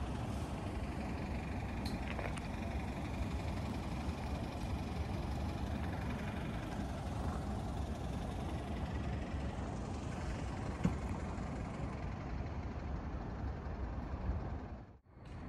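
Steady low rumble of outdoor street noise, with a short knock about eleven seconds in; the sound cuts off abruptly near the end.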